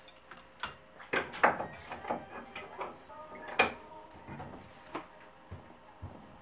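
Irregular clicks, knocks and clatter of a spoked bicycle wheel and its Sturmey Archer hub being handled and repositioned in a bench vise, with the two sharpest knocks about a second and a half and three and a half seconds in.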